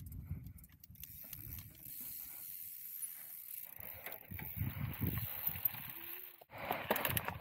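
Full-suspension mountain bike riding a trail: ticking and rattling from the bike over low rumble of tyres and wind on the camera. The clatter gets busier and louder near the end.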